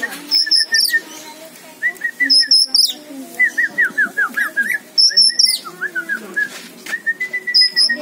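Oriental magpie-robin (kacer) singing: a string of quick chirping notes broken by loud, high whistled phrases four times.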